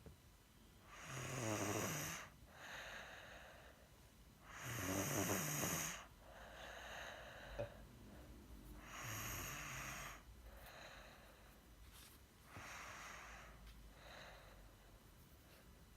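Snoring: three loud rattling snores about four seconds apart, each followed by a softer breath. Near the end comes a weaker breath without the rattle.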